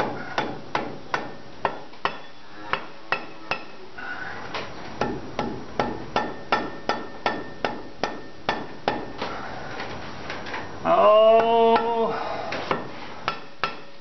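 Quick light taps of a red plastic-headed mallet on the steel planetary hub of an IMT 560 tractor's front wheel, about two to three a second, tapping the hub parts home as they are lined up. A brief hum from a person's voice about eleven seconds in.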